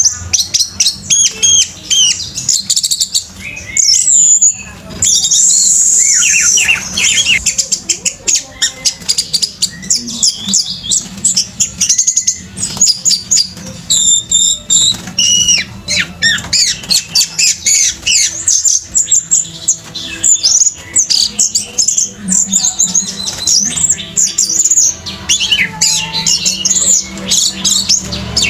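Orange-headed thrush singing a fast, unbroken song of varied whistled and chattering notes, the intense full song of a male in breeding condition.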